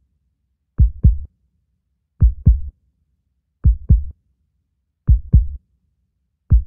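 A heartbeat sound effect: a low double thump, lub-dub, repeating about every one and a half seconds, five times, with silence between.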